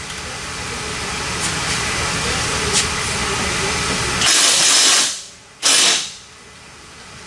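Pneumatic air tool running while the Mustang's camber bolts are loosened: a steady mechanical whirr for about four seconds, then two short loud blasts of air hiss.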